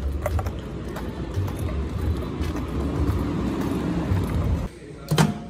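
Street ambience picked up on a moving handheld phone: a steady low rumble with scattered light ticks. Near the end the sound cuts off abruptly and a single sharp knock follows.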